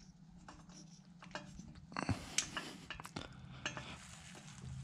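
Light metal-on-metal clicks and clinks of a header bolt being started by hand through a long-tube header's flange into the cylinder head, with a handful of sharper clicks in the second half.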